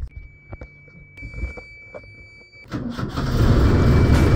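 A boat's engine being started at the wheelhouse panel. A steady high warning tone sounds for about two and a half seconds, then cuts out as the engine cranks and catches about three seconds in. The engine then runs loudly and steadily.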